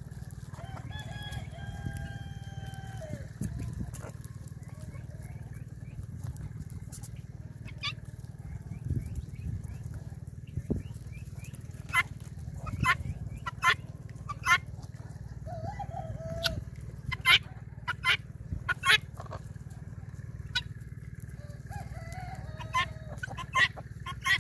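A rooster crows once near the start, a single drawn-out call of about two and a half seconds. From about eight seconds in, a flock of helmeted guinea fowl and chickens gives a run of short, sharp calls with a couple of brief clucks, over a steady low hum.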